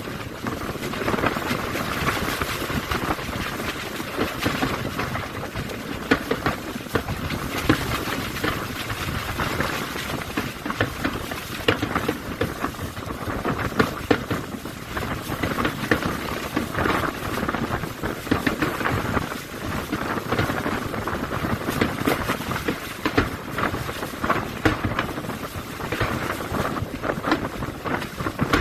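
Fireworks display going off over the sea: a dense, unbroken run of bangs and crackles with no pause.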